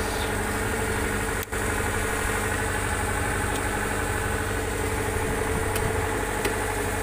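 An engine running at a steady idle, with a momentary dropout about a second and a half in and a few faint clicks near the end.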